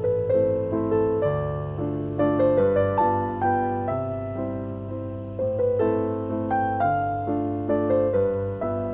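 Calm piano music: a steady flow of struck notes and chords, each ringing and fading, over a held low tone.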